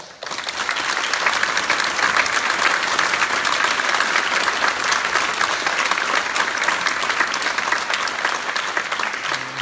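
Audience applauding, breaking out suddenly and holding steady, easing off slightly near the end.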